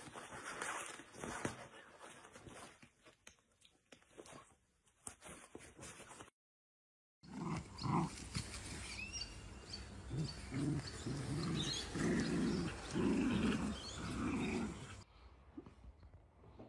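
Dachshund puppies growling in short repeated bursts while tugging on a rope toy, following a quieter stretch and a second of silence.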